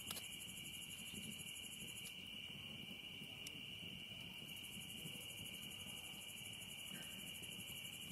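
Night cricket chorus: a steady high trill with a second, faster-pulsing insect call above it, and a few faint clicks.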